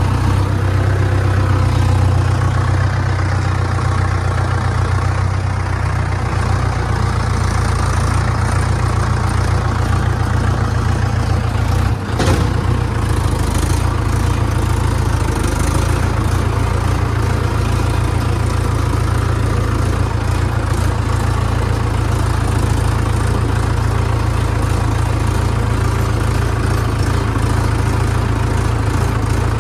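Farm tractor's diesel engine running steadily at an even speed.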